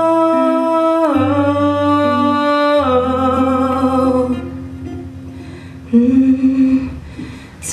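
A singer holding long, wordless sung notes on 'oh' in a slow ballad, over guitar accompaniment. The held notes step down in pitch a few times, the voice drops quieter for a stretch in the middle, then comes back louder for a last note that fades away near the end.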